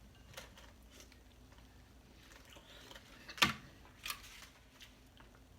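A person eating seafood boil with their mouth close to the microphone: soft mouth clicks and smacks, with one sharp, louder smack about three and a half seconds in and another shortly after.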